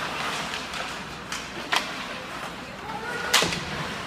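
Ice hockey rink sounds during play: sharp cracks of sticks and puck, the loudest knock about three and a half seconds in, over a steady murmur of voices in the arena.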